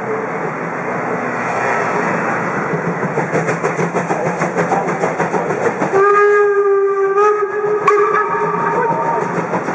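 Steam locomotive hissing steam with a fast rhythmic puffing, then its steam whistle sounds one long blast of about three seconds, starting about six seconds in.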